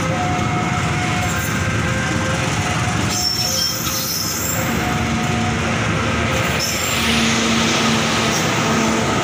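Indonesian passenger train coaches running past close by: a steady, loud rush and rumble of wheels on rail. Thin, squealing wheel tones come and go over it.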